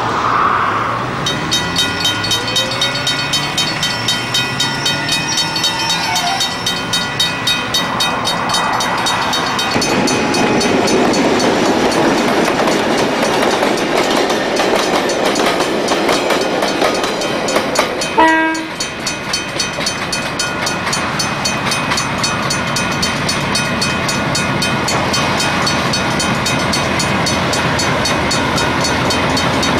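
A freight train hauled by several New Zealand Railways DX- and DC-class diesel-electric locomotives passing close by, its engines running. The wheels click rhythmically over the rail joints. A steady high tone sounds through the first third, and the sound grows denser from about a third of the way in as the locomotives go past.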